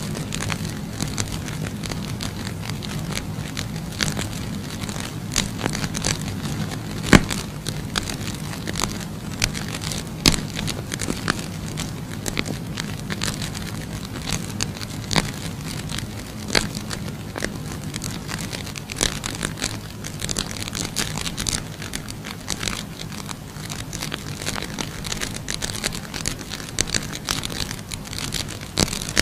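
Fire of burning safety matches crackling, with irregular sharp pops throughout, over a steady low hum.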